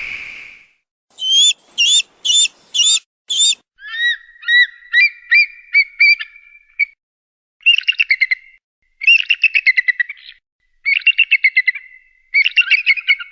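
Eagle calling: five short, sharp high-pitched notes, then a run of rising piping notes, then four rapid chittering trills of about a second each.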